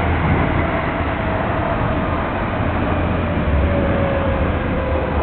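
Inside an Odakyu commuter train running underground on the Chiyoda Line: steady loud running noise of wheels on rail with a deep rumble, and a faint whine that falls slowly in pitch.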